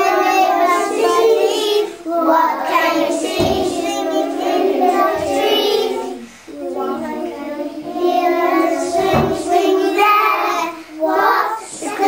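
Young children singing a song, with a few dull low thumps about three and a half, five and nine seconds in.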